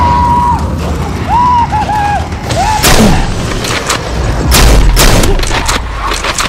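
Video-game-style gunshot sound effects dubbed over toy blaster fire: a quick run of sharp shots through the second half, over a low rumble. Short electronic tones glide up and down in the first half.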